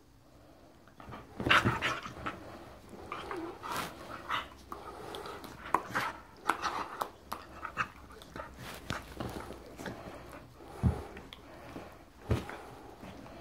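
Staffy (Staffordshire bull terrier) making short, irregular play noises while mouthing and wrestling a man's arm. The loudest one comes about a second and a half in.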